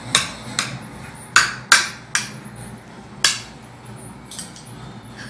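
A series of sharp, hard knocks at irregular intervals, about seven in all, the loudest two coming close together a little over a second in.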